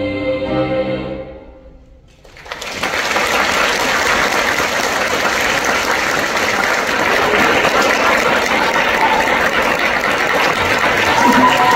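A choir's final sung chord fades out, then after a brief hush the audience breaks into sustained applause.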